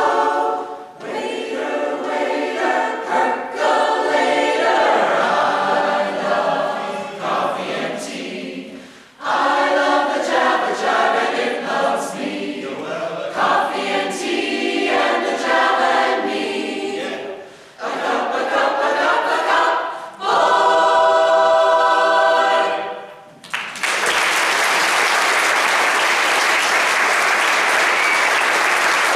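Mixed choir singing in close harmony, in phrases with short breaks, ending on a loud held chord that cuts off together. The audience then bursts into steady applause for the last few seconds.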